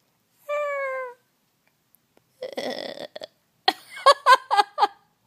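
A woman's wordless vocal noises. About half a second in comes a short falling tone, then a breathy rasp, then a quick run of high-pitched laughter near the end.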